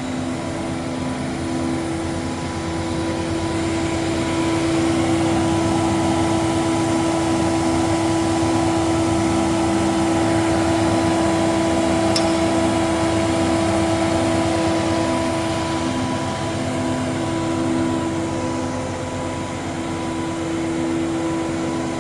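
Panhans Typ 335 A woodworking planer running, a steady machine hum with a constant tone. It grows louder and noisier from about four seconds in and eases off again after about fifteen seconds.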